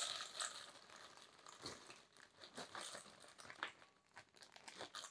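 Faint crinkling of a plastic zip-top bag as broken pork rinds are poured out of it into a metal bowl, with scattered light clicks and crackles.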